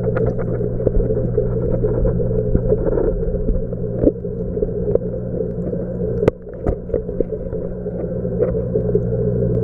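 Steady low hum of aquarium equipment running, with scattered light clicks and one sharp click a little past six seconds in.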